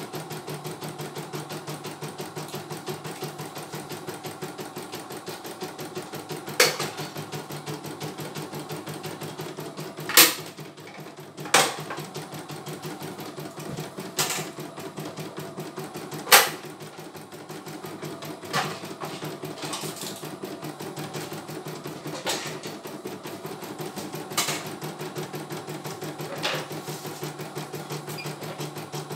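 CNY E900 computerized embroidery machine stitching a design, its needle running in a fast, steady rhythm, with a sharp clack every few seconds as it works.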